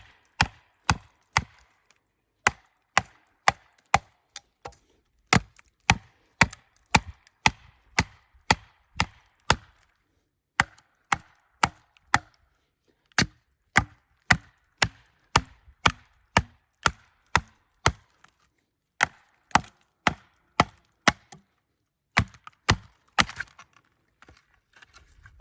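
Batoning with a Tops Prather War Bowie: a baton knocks on the knife's spine about twice a second, driving the blade into wood, in runs of strikes with short pauses between them.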